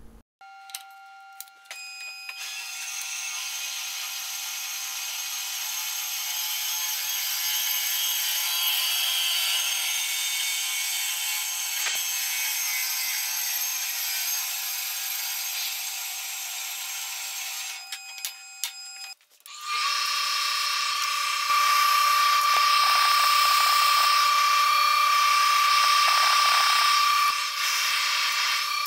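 Hand-held power tool running with a steady high whine, in two long stretches, the second louder after a short break near the middle.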